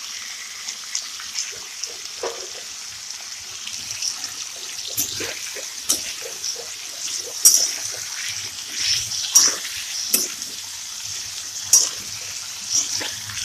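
Potato cubes sizzling steadily as they fry in oil in a pan. From about five seconds in, a spatula scrapes and clicks against the pan as they are stirred, the sharpest click near the end.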